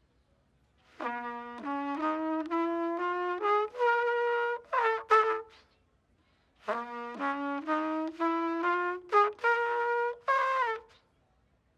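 A brass instrument with a trumpet-like tone plays a short melody of stepped notes climbing upward, then repeats the same phrase after a pause of about a second.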